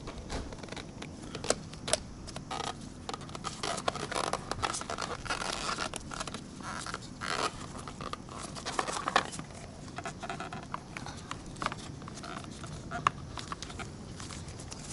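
Irregular clicks, ticks and short scrapes of tools and parts being handled, with no engine running, as the motorcycle's cover is worked on.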